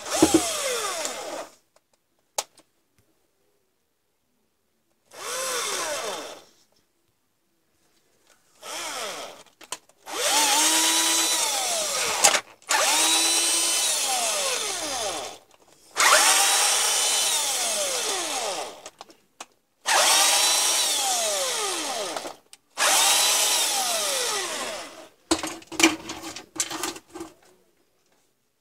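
Cordless drill, its chuck gripping the shaft of a Dremel 3000 rotary tool and turning its motor, run in about eight short bursts. Each burst starts with a rising whine, holds steady for one to three seconds, then winds down as it coasts to a stop. Quick clicks and rattles follow near the end.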